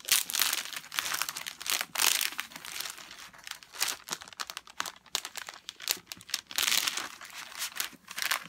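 Clear plastic protective film on a diamond painting canvas crinkling and crackling in irregular bursts as hands lift it off the sticky glue and smooth it back down.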